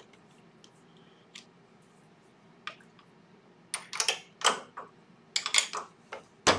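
Metal clicks and clacks of a wood lathe's chuck being unscrewed and handled: a few faint clicks, then a run of loud, sharp knocks from about four seconds in.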